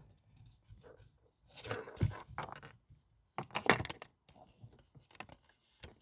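Handling noises of a plastic centre-console trim panel and a cable: scattered plastic clicks and rustles as the dual USB port's wires are fed through the panel opening and the port is worked into place. There are two louder bursts of clatter, about two seconds and three and a half seconds in.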